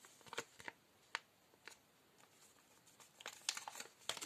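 Plastic and foil cosmetic packaging crinkling as it is handled: scattered crackles, busier in the last second or so.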